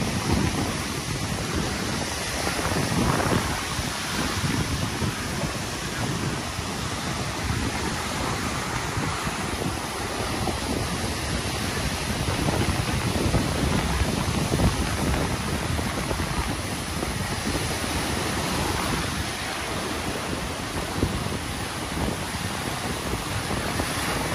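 Rough surf breaking and washing up a sandy beach: a steady rush of water that swells now and then as waves come in.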